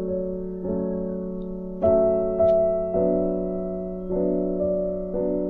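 Background music: slow piano or electric-piano chords, a new chord struck about once a second.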